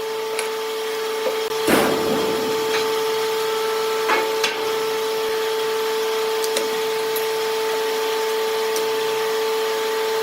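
An electric power tool's motor running at a steady pitch, with a few short knocks and clicks of wood. The loudest knock comes about two seconds in.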